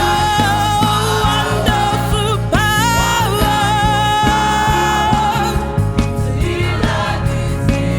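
Youth gospel choir singing with band backing: long held notes over a steady drum beat.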